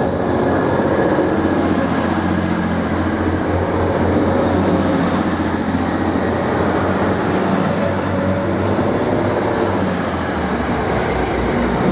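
TransPennine Express train running slowly into the platform, with a steady rumble of wheels and running gear. A thin, high squeal holds steady through most of it, then drops in pitch near the end as the train slows.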